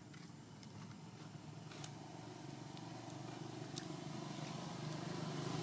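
Low engine rumble of a motor vehicle that grows steadily louder, as if approaching, with a few faint clicks over it.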